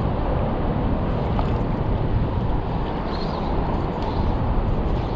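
Steady rush of a shallow river's flowing water, with low rumble from wind on the microphone.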